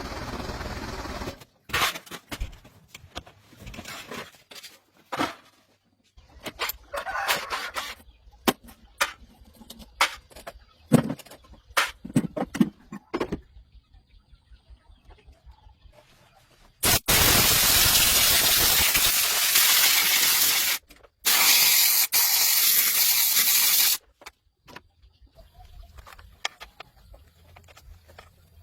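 Scattered knocks and clatter of handling, then two long, even spraying hisses of about four and three seconds that start and stop abruptly, like a compressed-air spray being triggered.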